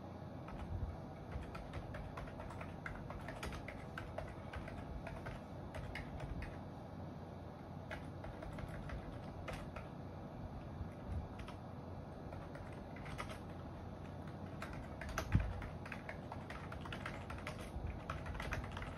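Typing on a computer keyboard: irregular keystroke clicks over a steady hum, with one heavier low thump about fifteen seconds in.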